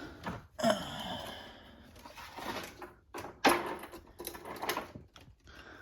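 Handling noises from a plastic upright vacuum cleaner: irregular knocks, clatters and scrapes as it is moved and checked over by hand, with the sharpest knocks about half a second and three and a half seconds in.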